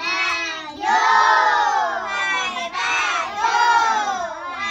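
Several voices singing a birthday song loudly together, in drawn-out held notes.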